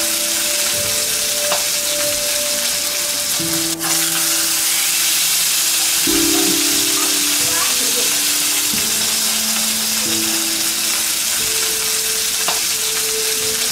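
Food frying in hot oil in a frying pan: a steady sizzle. Background music with long held notes that change every second or two plays along with it.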